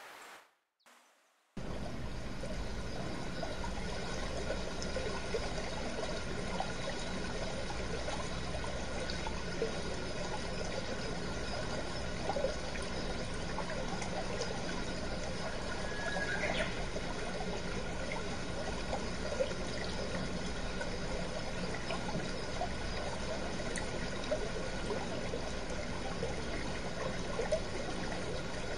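Mountain stream rushing over and between boulders: a steady, even water noise that starts abruptly about a second and a half in.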